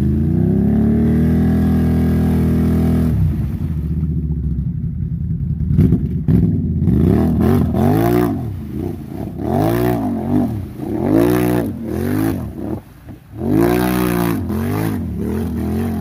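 ATV engine bogged down and stuck in deep mud, held at steady high revs for about three seconds, then revved up and down over and over, roughly once a second, as the rider tries to rock it free.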